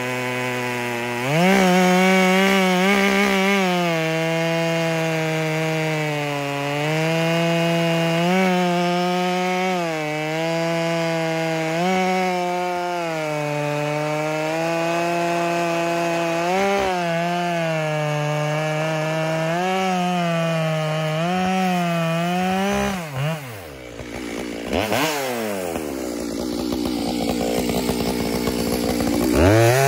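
Makita 7900 two-stroke chainsaw bucking a large white oak log at full throttle, its pitch sagging a little under load and recovering for about twenty seconds. The chain then comes out of the cut: the engine drops to idle, revs briefly, idles, and revs up again near the end.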